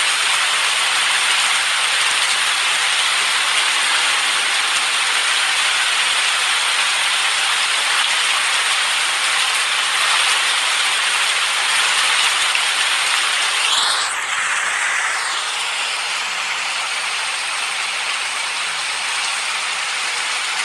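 Steady, dense rain hiss with no thunder to be heard. About fourteen seconds in there is a brief swishing sweep, after which the rain is a little quieter.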